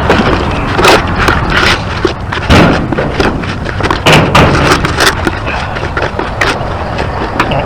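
Hydraulic cement patch being stirred by hand in a container: irregular scraping and knocking of the mixing tool through the thickening paste, over a steady low rumble.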